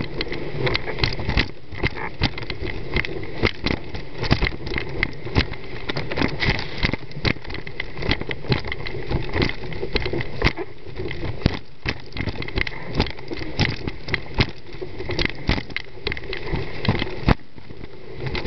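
Wind buffeting a windsurfer's mast-mounted camera microphone while sailing, a steady rushing noise. Irregular sharp knocks and slaps come several times a second as the board and rig cross the chop.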